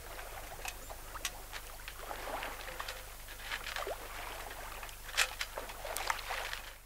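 Water washing and slapping against the hull of a small sailing yacht moving under sail through choppy water: a steady wash with irregular short splashes.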